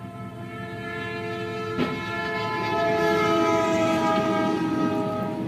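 Locomotive multi-note air horn sounding a long chord, getting louder as the train approaches, its pitch sagging slightly near the end. There is a short click about two seconds in.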